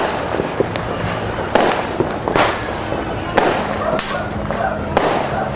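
Fireworks and firecrackers going off: irregular sharp bangs, several within a few seconds, over a constant crackling din of explosions.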